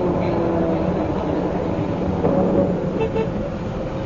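MCW Metrobus on the move: a prominent differential whine, in several tones, falling slowly in pitch as the bus slows, over the low, steady running of its Gardner diesel engine.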